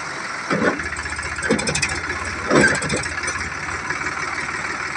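Sonalika DI 745 tractor's diesel engine running under load as the rear wheel spins in loose sand, with three brief louder bursts in the first three seconds.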